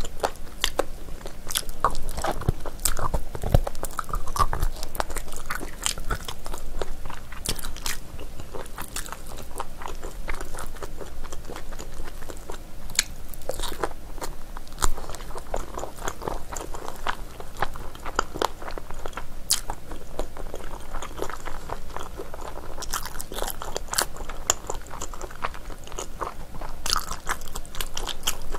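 Close-miked biting and chewing of chewy braised beef trotter, the gelatinous skin and tendon giving many quick, sharp mouth clicks and smacks throughout.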